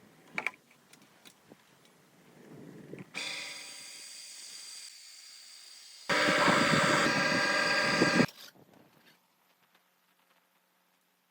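A motor-driven machine running steadily with a hiss, in two short stretches: a quieter one of about three seconds, then a louder one of about two seconds. Each starts and stops abruptly. Near silence follows.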